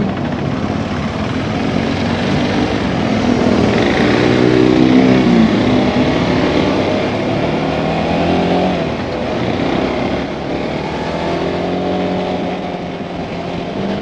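KTM 390 Adventure's single-cylinder engine pulling away through traffic. It revs up and drops in pitch at each gear change, several times over, under a steady rush of wind.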